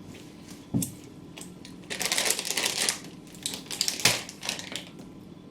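Crackling and crunching from crunchy snacks and their packet, with a few sharp clicks and a dense stretch of rapid crackles about two seconds in.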